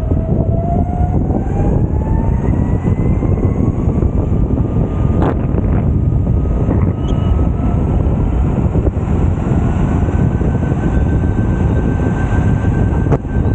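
Electric skateboard riding: steady rumble of the wheels on pavement, with wind on the microphone. A thin motor whine rises slowly in pitch as the board picks up speed, then holds steady. There are sharp knocks about five seconds in and near the end.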